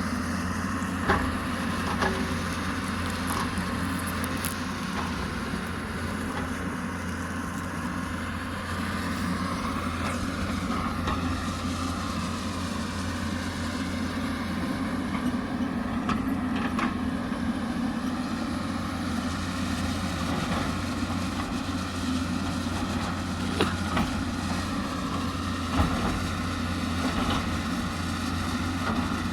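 Hyundai 220 excavator's diesel engine running steadily under load, with a higher whine that dips and rises again midway through. A few short sharp knocks come near the start and near the end.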